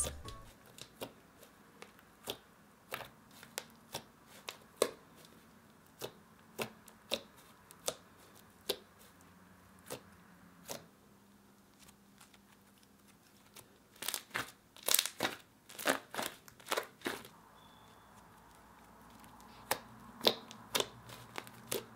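Soft blue cloud cream slime, a glossy glue slime mixed with instant-snow cloud cream, being pressed and squished by hand. It gives scattered sharp clicks and crackling pops, with a dense run of pops about two-thirds of the way through.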